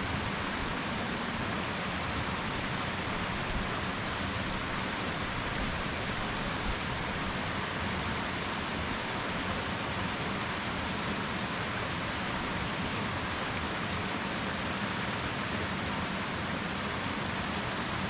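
Waterfall running: a steady, even rush of falling water with no breaks.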